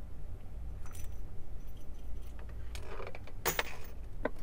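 Metallic clicks and clinks of a .357 Magnum MR-73 revolver being handled after test firing and set down on the bench. There are a few light clicks about a second in, a clatter of clinks a little after three seconds, and one last click near the end.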